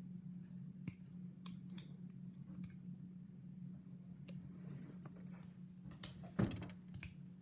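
Sharp metallic clicks of a side-opening stiletto-style switchblade comb being snapped open and shut and its lock worked, about eight separate clicks with the loudest two about six seconds in. A steady low hum runs underneath.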